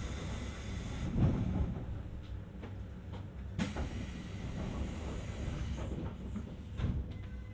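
Inside a JR East 719-series electric train car standing at a station. A steady low hum runs underneath. About three and a half seconds in comes a sudden burst of air hissing, and a few knocks are heard, typical of door and air-brake operation during the stop.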